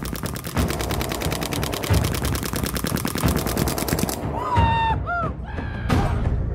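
Paintball marker firing on rapid fire: a fast, even stream of sharp pops, many a second, that stops about four seconds in. Then come two short squeaky cries that slide in pitch, over background music with a steady beat.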